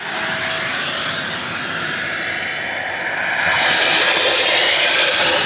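Vacuum cleaner running steadily, air rushing through its corrugated hose and nozzle as it works a car's floor mat and carpet. The sound grows louder and hissier about three and a half seconds in.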